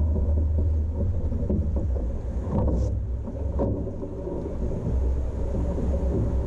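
Wind rumbling on the microphone of a camera mounted on the bow of a rowing boat, with two short knocks a little before the middle as a rower climbs out of the boat onto the wooden pontoon.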